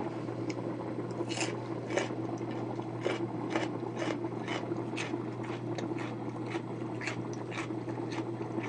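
Thick grain porridge simmering in a lidded stainless pot: irregular pops and clicks, about two or three a second, as bubbles burst, over a steady low hum.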